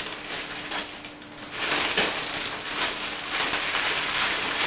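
Orange plastic biohazard bag rustling and crinkling as gloved hands gather and twist its neck loosely closed, in uneven stretches with short pauses.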